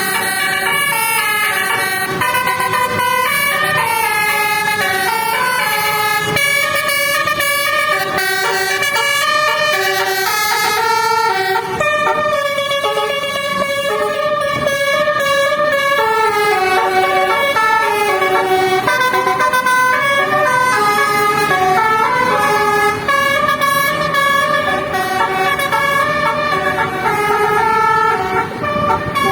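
Bus basuri horn playing a telolet tune, a steady run of sustained horn notes changing pitch one after another.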